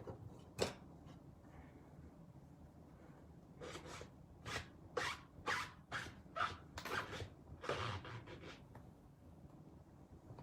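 Crafting supplies being handled on a work table: one sharp click, then a quick run of about a dozen short scraping, rustling strokes.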